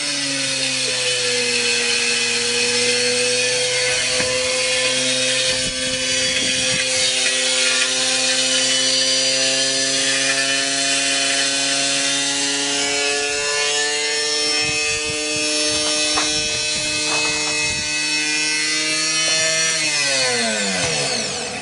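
Washing machine being run to destruction: its motor and drum run hard, with a steady whine that creeps slowly up in pitch over a rough grinding rub. About twenty seconds in, the pitch falls quickly and the machine winds down to a stop.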